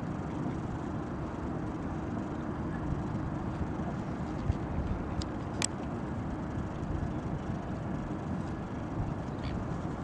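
Steady low rumble of a car, heard from inside its cabin, with a faint even hum. Two small sharp clicks come about four and a half and five and a half seconds in.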